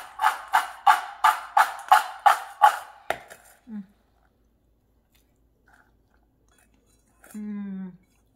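Roasted cashews tossed in a stainless steel mixing bowl: a rhythmic rattle, about three shakes a second, that stops about three seconds in. A short hummed voice sound comes near the end.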